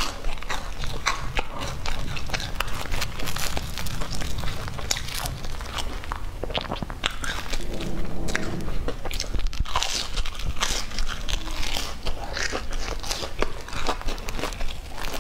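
Close-miked biting and chewing of a crumb-crusted bread bun with a soft filling: crisp crunching with many small crackly clicks, repeated bites and chews throughout.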